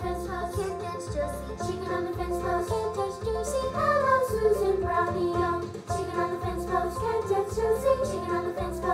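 A children's song played back with a voice singing the melody over an instrumental accompaniment with a steady low beat.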